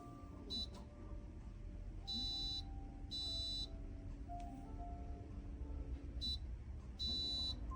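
Electronic beeping in a repeating pattern: a short high beep, then two longer beeps, the pattern starting again about six seconds later. Under it runs soft background music.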